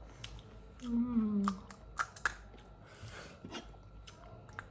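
Scattered crisp crunches and chewing from a mouth biting into panipuri, with a brief hum of a voice about a second in.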